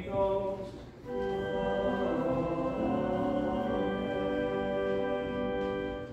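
Church music: singing for about the first second, then a long steady chord held for about five seconds that shifts once partway through.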